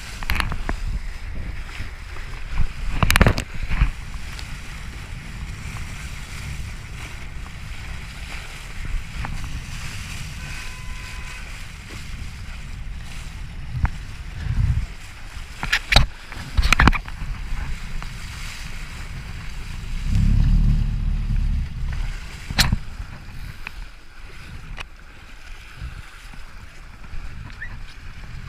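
Open-water wind and water noise: a steady low rumble of wind on the microphone with water sloshing, broken by several sharp knocks and a stronger gust about twenty seconds in.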